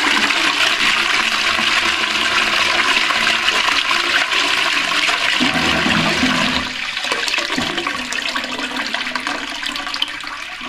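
Armitage Shanks Sandringham toilet flushing: a loud rush of water that eases off about six and a half seconds in to a quieter running flow.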